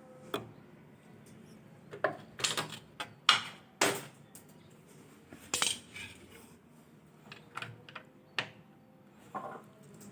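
Hand tools and small metal parts clinking and knocking in a dozen or so irregular sharp strikes, the sounds of screwing and refitting parts of a washing machine's water inlet assembly.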